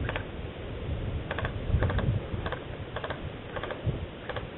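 Dry twigs and brush crackling underfoot and against the body as a person moves through scrub, with soft low thuds of footfalls and camera handling. The clicks come irregularly, about one to three a second, some in quick pairs.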